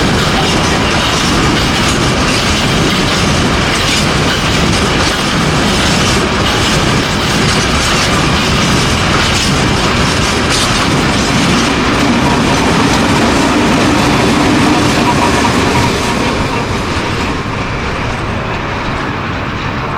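Heavy freight train of limestone wagons rolling past, wheels clattering over the rail joints in a steady rush that fades over the last few seconds.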